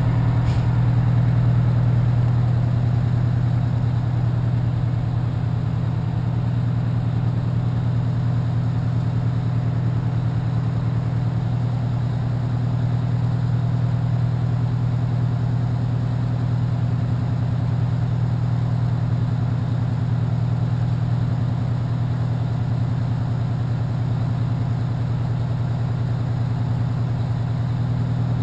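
Fire engine's diesel engine idling, a steady low drone.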